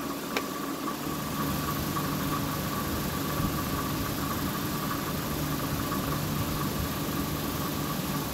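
A steady mechanical hum with a constant higher whine, unchanging throughout, and one light click about half a second in.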